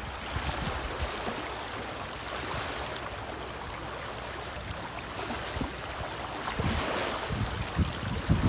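Choppy lake water lapping and washing against shoreline rocks in a steady wind, with gusts buffeting the microphone near the end.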